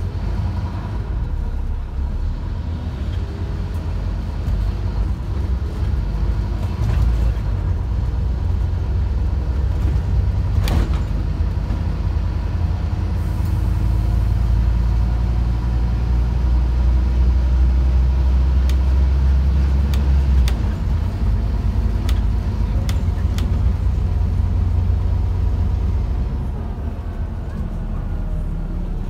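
Cabin sound of a Scania OmniCity bus under way: a steady low rumble of its diesel engine and road noise. It grows louder through the middle and drops back after about twenty seconds, with an occasional knock or rattle from the body.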